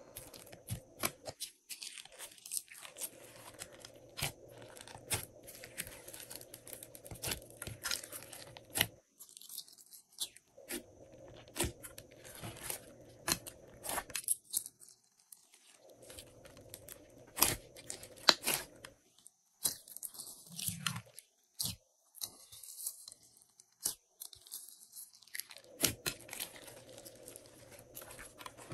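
Glossy slime being mixed and squished by hand, giving irregular sticky pops, clicks and crackles.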